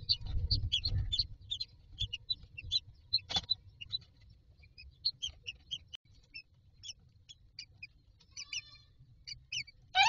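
Newly hatched common myna chicks cheeping in the nest box: rapid short high peeps, several a second, thinning out in the second half. Low rustling and soft knocks of an adult myna shifting on the straw nest come near the start, with one sharper knock a little over 3 s in.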